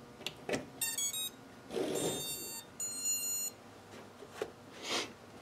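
Battery lead clicking into the Floureon Racer 250 quadcopter, then its brushless motors sounding the ESC power-up tones: a quick run of short stepped beeps, followed by two longer beeps. A handling rustle comes near the end.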